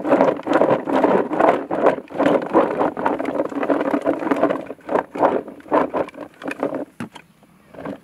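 Boilies rattling and tumbling inside a plastic bait bucket as it is shaken to coat them in liquid attractant. A dense, loud clatter for about four and a half seconds thins to scattered rattles and dies away about seven seconds in.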